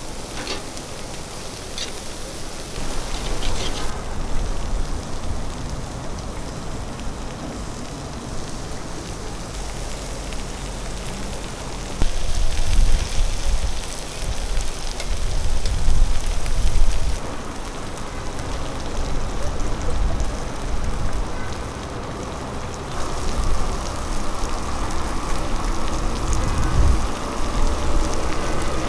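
Meat and ribs sizzling on a grill, a steady crackling hiss that shifts in level at each change of shot, with a low rumble swelling in places.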